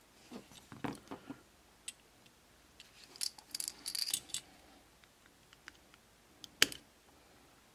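Small sharp clicks and taps of a hand tool working against the metal base of a diecast toy car: a few in the first second, a quick cluster a little past the middle, and one louder click near the end.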